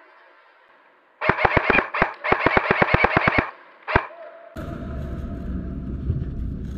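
Airsoft rifle firing rapid bursts of shots, about nine a second, for around two seconds, then a single shot a little later. A steady rushing noise follows.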